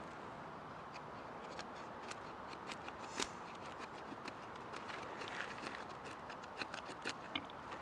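Dry sticks clicking and knocking against each other as they are handled and laid down to build a small fire platform. The taps come irregularly, with a sharper knock about three seconds in and a quick run of them near the end.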